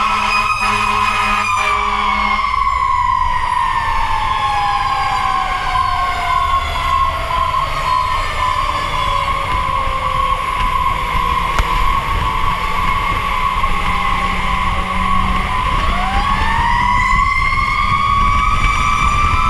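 Fire engine siren wailing: the pitch holds high, sinks slowly over more than ten seconds, then sweeps quickly back up near the end. A steadier high tone and the truck's engine and road rumble run underneath.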